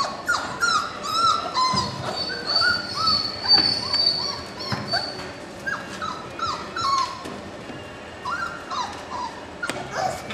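A litter of four-week-old puppies whimpering and yipping in short, high-pitched cries, with one longer high whine a few seconds in. The cries pause briefly in the middle, then start again.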